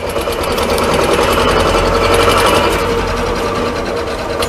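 A T-25 tractor's two-cylinder air-cooled diesel engine running steadily with a fast, even clatter.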